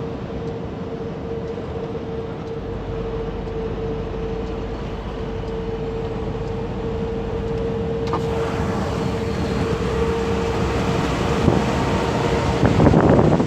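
Car-carrier truck rolling at road speed, with a steady droning hum over the road noise. The driver is unsure whether the drone comes from a worn wheel bearing or from the drive-axle tyres. It grows gradually louder, with wind buffeting the microphone near the end.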